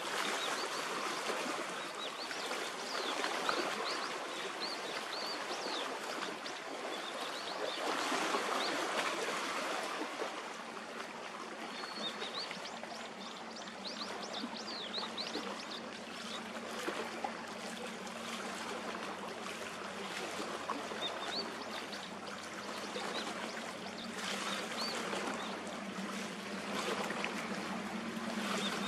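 Water lapping and splashing at the shoreline, with small birds chirping now and then and a low, steady hum that grows slightly stronger in the second half.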